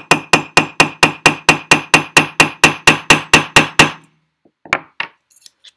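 Riveting hammer tapping a steel dapping punch in quick, even blows, about four a second, each with a bright metallic ring, flaring the end of a tube rivet. The hammering stops about four seconds in, followed by a couple of light clicks.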